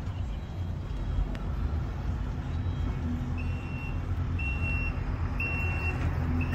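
A high electronic warning beep, repeating about once a second from about three and a half seconds in, over a steady low rumble.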